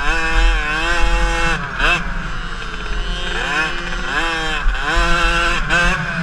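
KTM 50 motocross bike's small two-stroke single-cylinder engine on race throttle, its pitch climbing and holding, dropping away about a second and a half in, then climbing and holding again before easing off near the end. Wind buffets the onboard microphone underneath.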